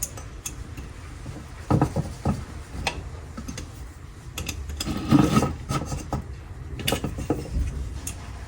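Ratchet wrench clicking in short runs as the bolts holding a diesel heater's two halves together are loosened, with a few louder metal knocks.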